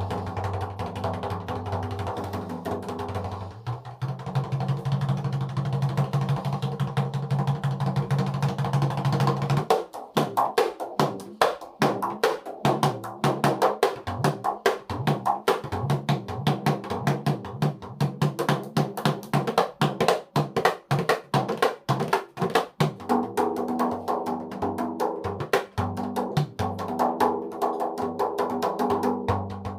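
Dikir barat rebana frame drums with pauh-wood bodies being beaten in a fast rhythm. The large rebana ibu is played without its rotan sedak tensioning rattan. Deep, sharp strikes come thick and fast from about ten seconds in, after a stretch of steady, droning sound.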